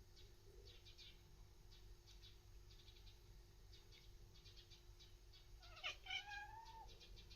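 Munchkin cat chattering at a bird: about six seconds in, a short stuttering burst runs into a brief meow-like cry that wavers in pitch. Faint high chirps of small birds repeat in quick clusters throughout.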